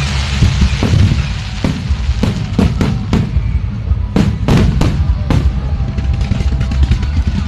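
Aerial fireworks going off in an irregular string of sharp bangs, about ten in a few seconds, over a continuous low rumble and music.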